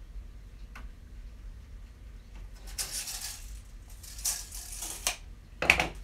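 A tape measure and a wooden board being handled on a workbench: a light click, two stretches of scraping, and a louder knock near the end. The mitre saw is not running.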